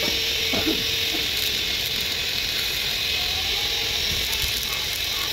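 Stick (arc) welding: the electrode arc crackling and hissing steadily as steel rods are welded onto a bar grate.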